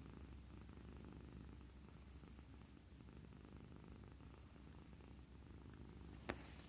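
Domestic cat purring, a faint steady low rumble, while it lies contentedly against a person's chest. A single sharp click about six seconds in.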